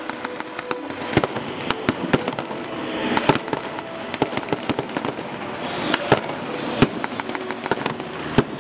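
Blank rifle shots in an irregular, scattered volley, single cracks a fraction of a second to a second or so apart, over a steady background hubbub.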